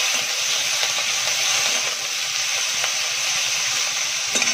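Paneer cubes sizzling in hot oil in a kadhai, a steady hiss while they are lightly sautéed. Near the end come a few quick clicks of the metal spatula against the pan.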